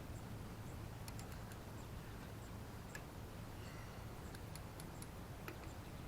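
Click-type torque wrench tightening wheel lug nuts to about 70 foot-pounds: faint ticks and clicks in small clusters, several times.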